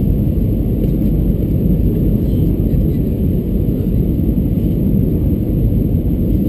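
Steady, deep rumble of an Airbus A320-214 airliner heard from inside the passenger cabin: engine and airflow noise, even throughout.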